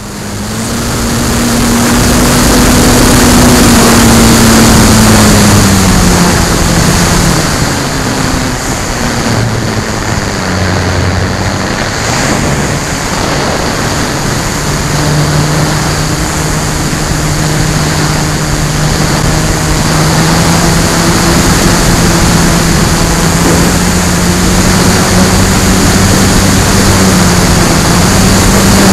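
Onboard sound of an FMS Bf-109 RC model's electric motor and propeller in flight, a steady pitched drone that drops about six seconds in and climbs slowly in the second half as the throttle changes. Heavy wind rush over the wing-mounted camera runs under it.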